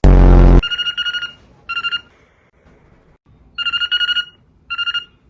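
A trilling telephone-style ring, in two long-short pairs of rings about three seconds apart, opened by a loud harsh burst.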